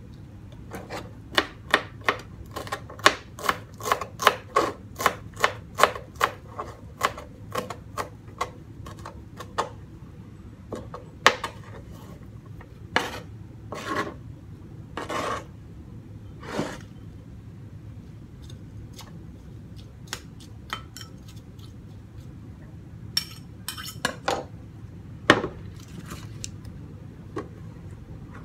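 Kitchen knife chopping fresh green herbs on a plastic cutting board: a quick run of sharp chops, about three a second, for the first ten seconds or so, then scattered single knocks and a few short scrapes.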